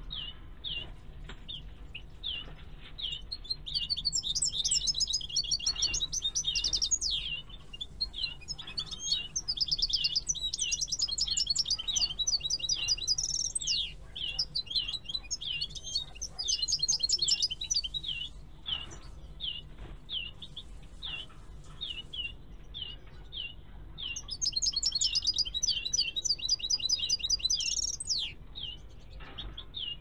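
Caged European goldfinches singing: four bursts of fast, liquid twittering song of a few seconds each, over short chirps repeated two or three times a second throughout.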